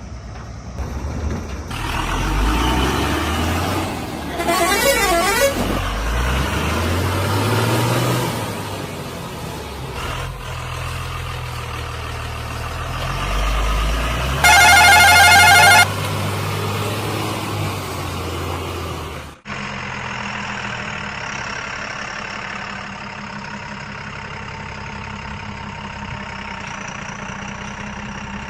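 Truck engine sound revving up and down several times, with a loud horn blast lasting about a second a little past the middle. The engine and horn cut off suddenly, leaving a steady hum.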